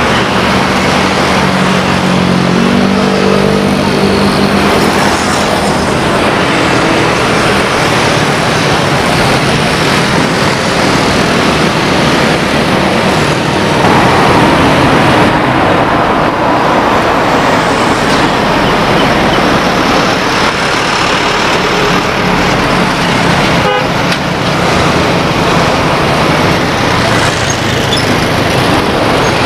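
Loud, steady engine and traffic noise. In the first few seconds a pitched engine tone climbs in steps.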